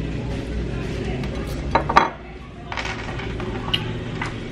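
A fork clinking against a ceramic plate, with two sharp clinks a little before two seconds in and lighter taps after. A low background hum cuts off about two seconds in.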